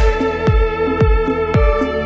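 Background music with a steady beat: a deep kick drum about twice a second under sustained tones.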